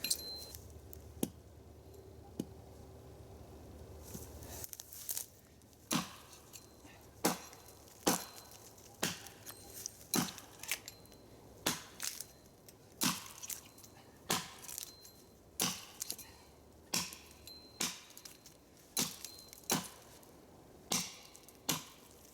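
Axe chopping into a thick log: after a few seconds of scattered light knocks, a long run of strikes, roughly one or two a second, each a sharp wooden chop.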